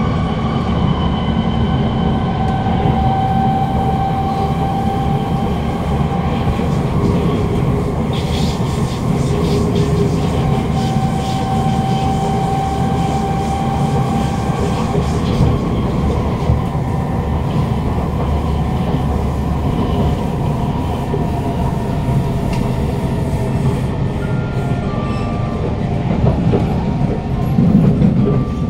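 Inside a Kawasaki Heavy Industries C151 metro car with GTO-VVVF traction: a steady rumble of wheels on rail with the traction motor's whine over it. Near the end the motor tones shift in short steps as the train slows into the station.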